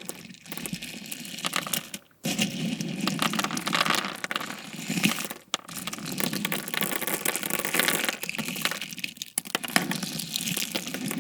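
Slushie bead slime being squeezed and worked by hand: a dense, wet crackle of many small pops and squelches, with brief pauses about two and five and a half seconds in.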